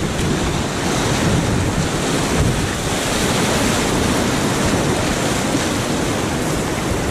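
Whitewater rapids rushing steadily and loudly around an inflatable kayak: a continuous churn of fast river water with no breaks.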